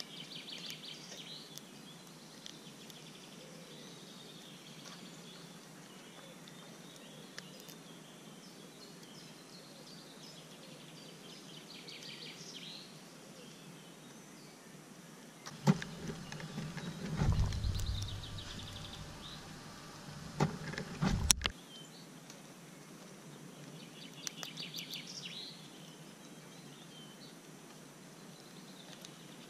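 Songbirds singing in the background, short high trills and chirps coming back every few seconds over faint outdoor ambience. About halfway through come a few seconds of low rumbling and bumps close to the microphone, ending in one sharp click.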